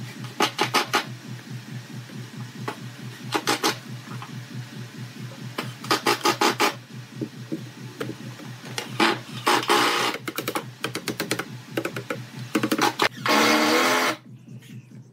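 Thin bent wooden strips clicking and knocking in short bursts of rapid ticks as they are worked against a slotted wooden frame, over a low steady hum. The densest and longest burst comes near the end.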